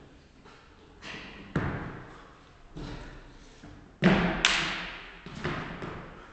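Thuds of a person jumping and landing on car tyres lying flat on a hard floor: about six or seven landings in a row, each ringing on briefly in the room, the loudest about four seconds in.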